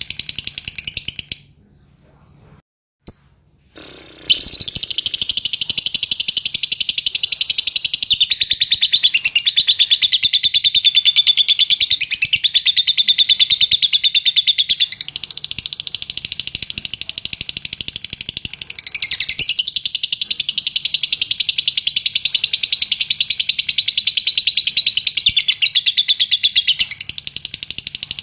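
Fischer's lovebird singing a long, rapid chattering trill, the continuous 'ngekek' that lovebird keepers prize. It breaks off about a second and a half in, with one short click in the gap, then starts again about four seconds in and keeps going without a break for over twenty seconds.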